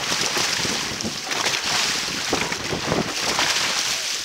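Dragon boat paddles stroking through the water, with repeated splashes and rushing water, and wind buffeting the microphone.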